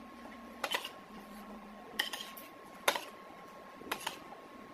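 Metal spoon clinking against a ceramic plate while scooping saba banana in coconut sauce: several sharp clinks, roughly a second apart, some doubled.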